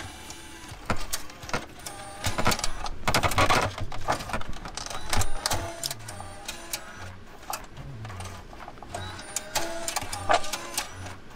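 Plastic wiring-harness connectors and loose wires being handled and plugged into the back of a car's dashboard control unit: irregular clicks and rattles, with faint pitched tones in the second half.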